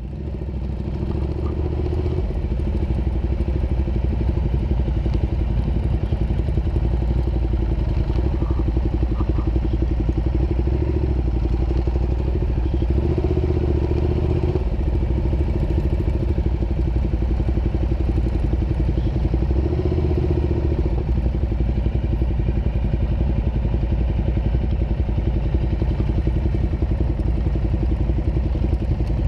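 Ducati Diavel's L-twin engine running steadily as the motorcycle rides along, heard from a camera mounted on the bike.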